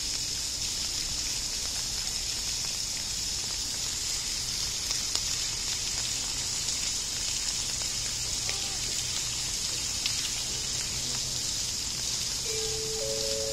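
Steady watery hiss with a low hum underneath. About a second before the end, a chime starts: four notes entering one after another, rising, each held.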